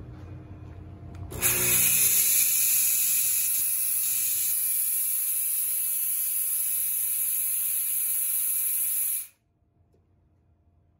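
Chauvet DJ Geyser P7 fog machine firing a burst of fog: a loud, steady hiss starts suddenly about a second and a half in, runs for about eight seconds, then cuts off abruptly.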